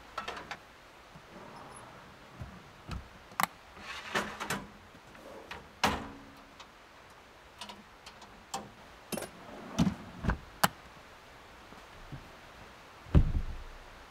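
Scattered clicks and knocks, with one heavy thump near the end.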